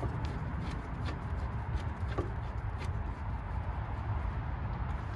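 A few faint, scattered metallic clicks as a brake caliper bolt is fitted by hand, over a steady low background rumble.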